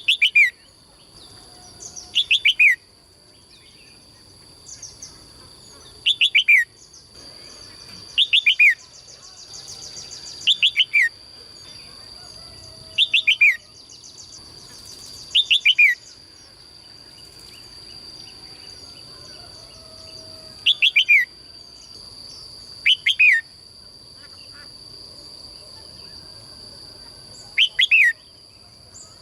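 A songbird calling over and over, roughly every two to three seconds, each call two or three quick downward-sweeping whistled notes. A steady high-pitched hum runs underneath.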